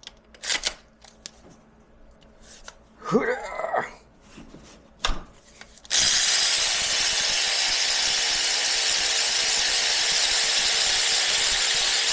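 A few light tool clicks, then a power tool's motor starts about halfway through and runs steadily at one speed for about six seconds before stopping abruptly.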